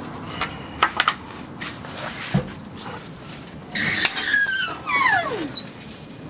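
Floor jack being worked by its handle under a car: a few metal clicks and knocks, then, about four seconds in, squeaks sliding down in pitch.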